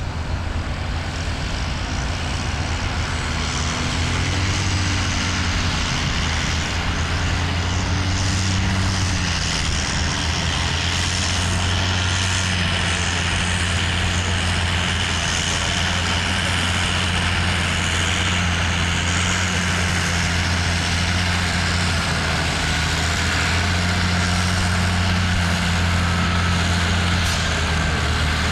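Tractor engine running steadily under load, its low hum getting a little louder over the first few seconds.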